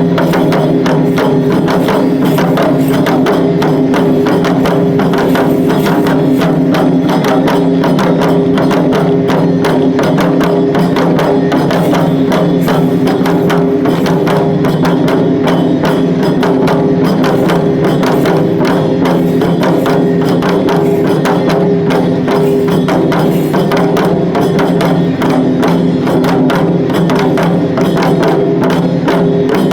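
Shishimai lion-dance accompaniment: drums struck in a rapid, continuous rhythm with sharp percussive hits over a sustained ringing drone, at a steady loudness.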